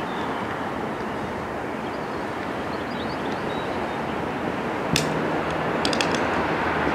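Steady rumble of a train approaching on the Underground tracks, not yet in sight, growing slightly louder. One sharp click about five seconds in, with a low hum starting at the same moment, and a quick cluster of clicks about a second later.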